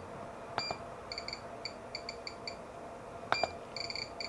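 Cheap electronic DC dummy load being set up by hand: a string of short, high beeps, one for each button or knob step, with a few sharp clicks among them.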